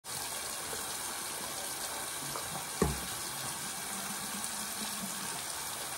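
Tap running steadily into a sink, with a single knock a little under three seconds in.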